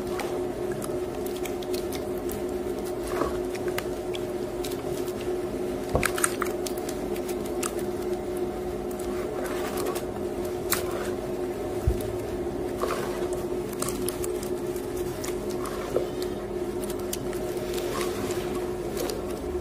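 Hands squeezing and kneading soaked gym chalk paste in water: wet squelches and drips, with a few sharper splats. A steady hum from a washing machine runs underneath.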